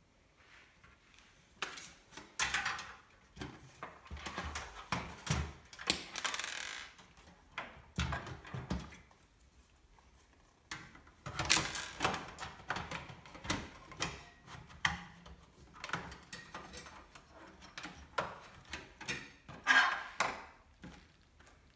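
Hands handling computer parts: a string of irregular clicks, knocks and light clatter, with a few brief rustles.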